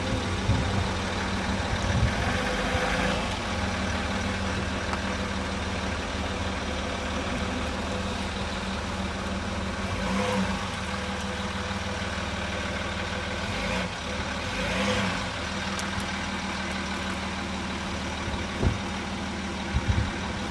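Land Rover Discovery 3's engine running at low, steady revs as the SUV crawls over uneven grassy ground, with a few short knocks near the end.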